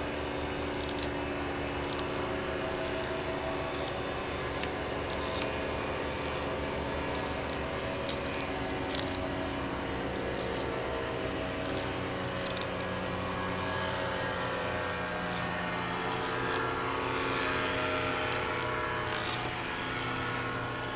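Fillet knife cutting a flounder along its backbone: scattered short clicks and scrapes as the blade works over the bone, over a steady mechanical hum.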